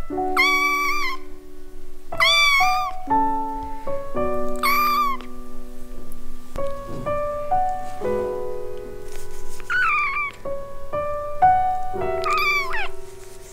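Young kitten meowing: about five high-pitched meows, each under a second, spread through the stretch. Soft piano music plays underneath.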